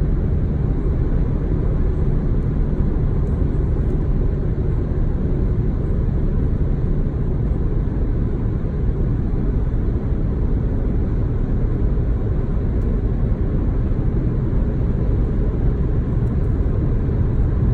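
Car driving along the road: a steady, low rumble of road and wind noise that does not change.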